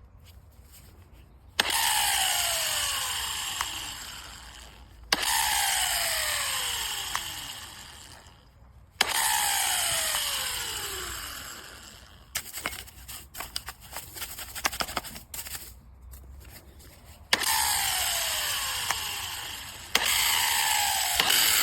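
WORX WX803.9 20V cordless angle grinder run briefly five times. Each time the motor starts suddenly and then winds down with a falling whine. Partway through, a run of irregular clicks and rattles comes between the runs.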